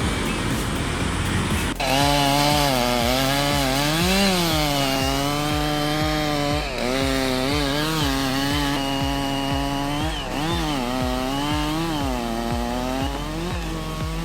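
Chainsaw running under load, its engine pitch dipping and rising again and again as it cuts. It starts with a cut from a different noisy sound, about two seconds in.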